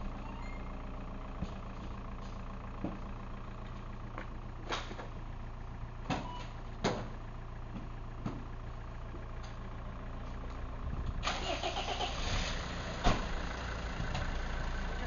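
Mercedes-Benz ambulance van's engine running steadily, with a few sharp knocks and thumps. A louder rush of engine noise sets in about three-quarters of the way through, and a single door slam comes near the end.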